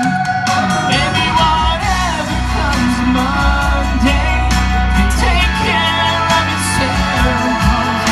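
A song: a sung vocal line with drawn-out notes over full band accompaniment, with bass and chords.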